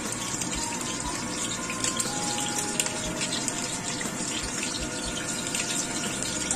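Hot oil sizzling steadily in a wok around fish-stuffed bell pepper pieces frying filling-side down, with many small pops and crackles through the sizzle.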